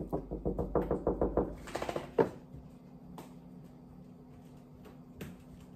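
Rapid knocking with a fist on an interior door, about a dozen quick knocks in the first two seconds ending with one harder knock, then a couple of single taps. A faint steady hum runs underneath.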